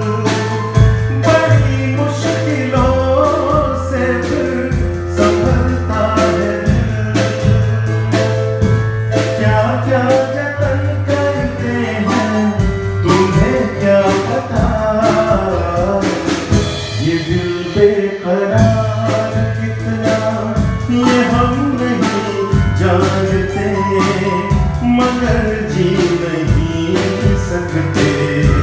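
A small live band playing: a drum kit keeping a steady beat with cymbals, under an electronic keyboard playing bass and melody. The drums and bass drop out for a few seconds past the middle, then come back in.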